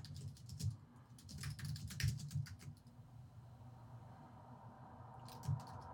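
Typing on a computer keyboard: quick runs of keystrokes in the first two or three seconds, a pause of about two seconds, then another short run near the end.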